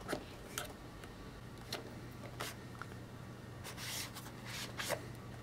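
Light handling sounds: a few scattered small clicks and a soft rustle about four seconds in, as a boxed braided cable and its packaging are picked up and moved about.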